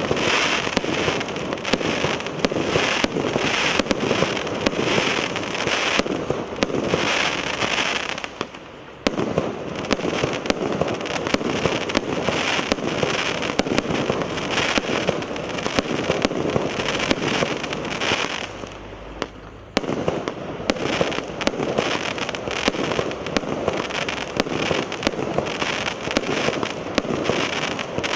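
A consumer fireworks battery (multi-shot cake) firing in rapid, continuous succession, dense shots and bursts one after another. There are two short lulls, about a third and about two-thirds of the way through.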